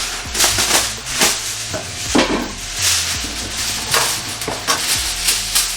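Homemade dry rub being worked onto meat: a run of irregular, scratchy swishes about once a second.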